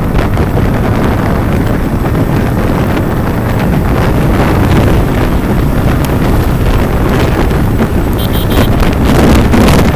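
Wind buffeting the microphone of a moving motorcycle, a loud steady rush, with the Bajaj Pulsar 150's engine running underneath.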